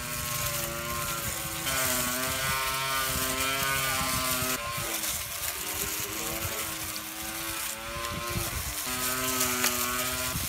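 Homemade trimmer's 775 DC motor spinning its cutting disc through leafy ground cover: a steady motor whine whose pitch shifts several times, over a constant hiss.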